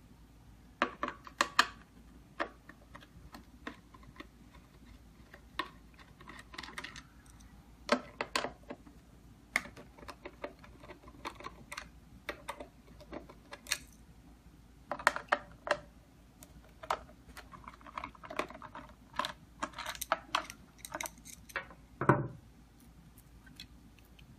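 Irregular small clicks and taps of a screwdriver and fingers working the metal interior panel of an electronic keypad deadbolt, as its screws are undone and the panel is taken off the door, with one louder knock near the end.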